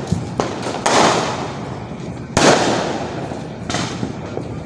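Fireworks going off: a sharp bang about a second in and another about two and a half seconds in, each trailing off in a fading rush of noise, with smaller pops in between.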